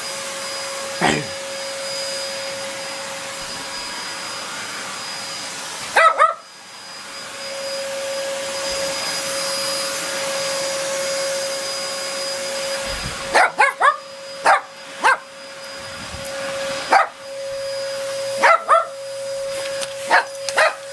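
Vacuum cleaner running steadily with a constant whine, while a small Bichon–Shih Tzu dog barks at it in short, sharp barks, some single and some in quick runs of two or three.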